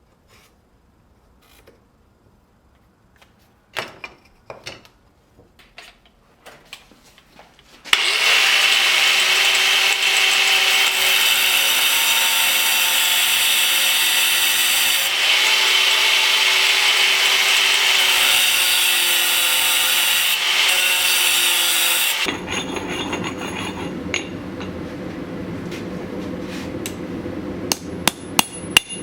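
A few faint knocks of handling, then a loud steady whine of a power tool working steel for about fourteen seconds, cutting off abruptly. A lower steady rushing sound follows, and near the end sharp hammer blows begin at about two a second.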